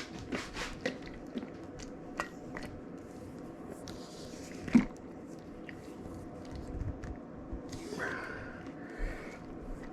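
Chopped red onion, ginger pieces and cloves being mixed together in a container: irregular taps and clicks of the pieces moving, with one louder knock about five seconds in.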